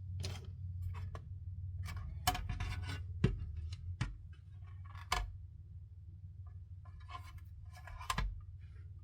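Scattered light clicks and knocks of plastic model parts and small tools being handled on a workbench, with a few sharper taps and a brief rustle near the end, over a steady low hum.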